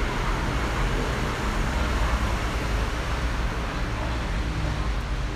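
Steady low rumble and hiss of a metro train running away along an elevated viaduct. It fades only slightly as the train draws off into the distance.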